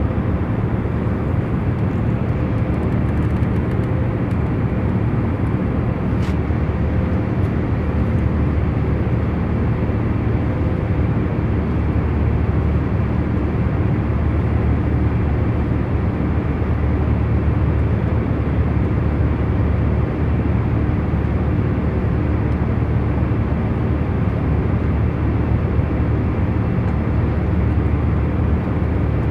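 Airliner cabin noise in cruise: a steady, even rumble of engine and airflow with a faint constant hum running through it. A single faint click about six seconds in.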